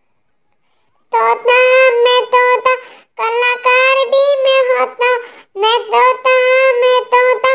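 A child's high voice singing a Hindi nursery rhyme in short sung phrases, starting about a second in after a brief silence.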